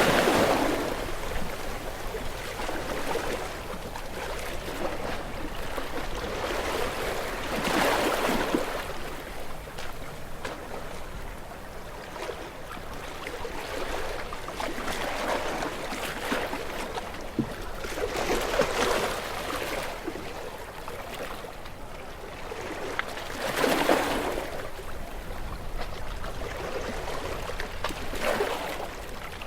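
Gentle sea waves washing up on a beach shore, each wave a rising and falling surge of rushing water, with about five in a row a few seconds apart.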